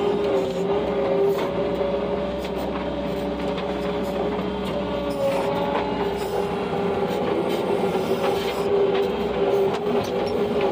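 Tractor engine running steadily, heard from inside the cab: a constant drone with a strong whine, and light rattles and clicks throughout.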